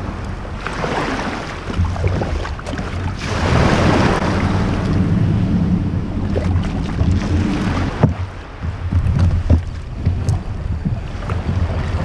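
Wind buffeting the microphone of a camera on a kayak's bow, over small waves washing on the shore and against the hull. A few knocks of the kayak being bumped as someone climbs aboard.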